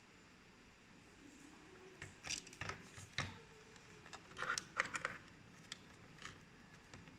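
Scattered light clicks and short scraping sounds of small parts being handled, in two clusters about two seconds in and about four and a half seconds in.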